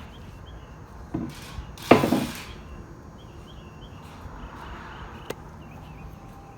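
Pieces of lumber knocking against each other: a light knock, then one loud wooden clatter about two seconds in, and a sharp click near the end.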